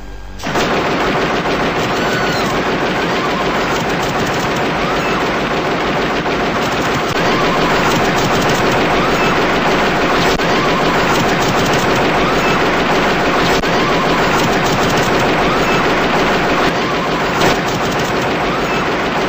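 Long, unbroken burst of heavy automatic gunfire from the ED-209 enforcement robot's arm guns, starting about half a second in. The robot is malfunctioning and firing on an arrest subject who has already put his weapon down.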